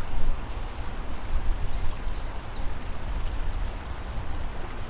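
Outdoor wind rumble and rustle on the microphone, uneven and low, with a small bird chirping a quick run of about five high notes about a second and a half in.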